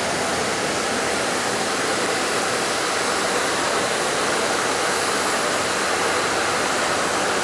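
A steady, even rushing hiss with no rhythm or pitch, holding at the same level throughout.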